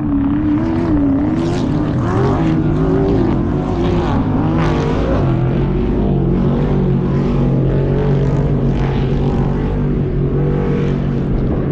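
Off-road race vehicle engine running hard, its pitch rising and falling repeatedly with the throttle for the first few seconds, then holding steadier.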